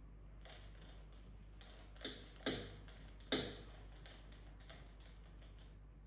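Light, irregular clicking and tapping, with three sharper clicks about two, two and a half and three and a half seconds in.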